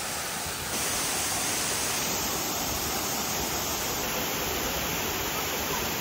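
Steady rushing of a tall waterfall, water pouring down from a height; it grows a little louder less than a second in.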